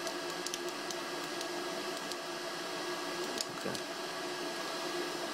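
Steady hum and hiss of electronic equipment cooling fans, with a few steady tones in it and a few faint clicks.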